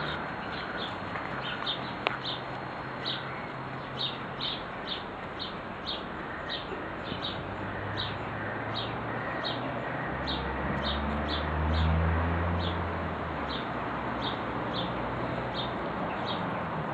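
A small songbird chirping over and over, short high chirps about two to three times a second, over a steady outdoor hiss. A low hum swells and fades around the middle.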